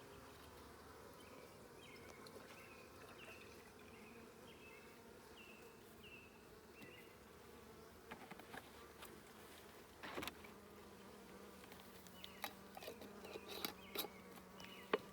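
Honeybees buzzing around an open hive: a faint, steady hum, with light clicks and knocks over the second half.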